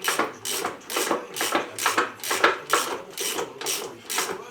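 Ratchet wrench being swung back and forth in quick, even strokes, about three a second, each stroke a short rasp of pawl clicks: spinning off the wheel nuts.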